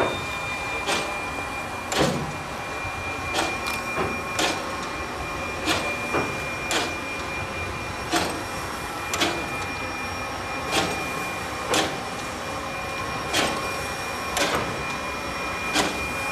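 Railway turntable rotating a steam locomotive: the drive gives a steady high whine, with a sharp knock about once a second as the bridge turns.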